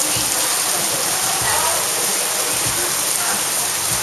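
Heavy tropical squall: a dense, steady hiss of downpouring rain.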